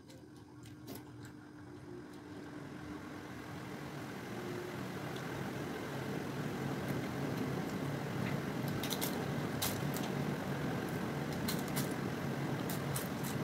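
A steady engine-like rumble that swells over the first several seconds and then holds, with a few short sharp clicks in the second half.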